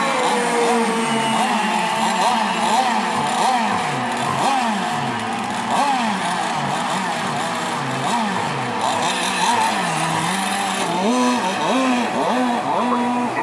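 Several gasoline two-stroke RC racing monohull boats running at full throttle, their engine pitch rising and falling as they pass, overlapping one another. One passes close near the end, the sliding pitch stronger there.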